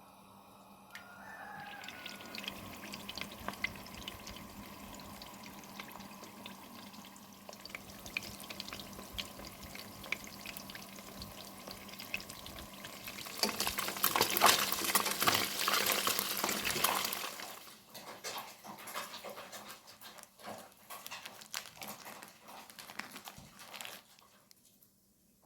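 Water running from a kitchen tap, with a louder, stronger flow a little past the middle, followed by scattered light clinks and knocks near the end.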